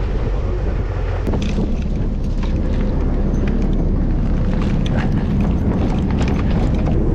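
A boat's engine running close by, a steady low rumble, with scattered knocks and clatter from about a second in.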